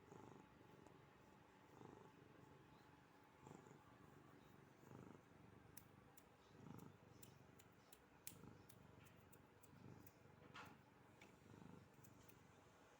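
Maine Coon cat purring while being stroked: a quiet, low purr that swells with each breath, about every second and a half. A few faint clicks in the middle.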